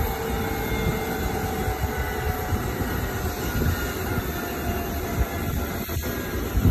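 Leonardo AW139 helicopter running on the ground, its twin turboshaft engines giving a steady whine over the noise of its turning rotors.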